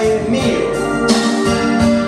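Pop song playing at full level, a keyboard-led backing track with a man singing live over it.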